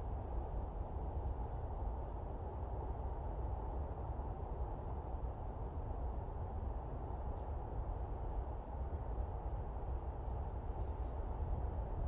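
Wind blowing steadily through eastern white pines: a dense rushing noise with a deep, unsteady rumble underneath. Faint short high peeps are scattered throughout.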